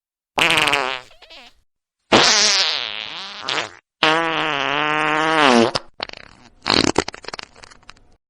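Four fart sounds in a row, each a loud buzzing blast that wavers in pitch. The first is short, the next two run about two seconds each, and the last breaks up into sputtering crackles. Brief gaps of silence separate them.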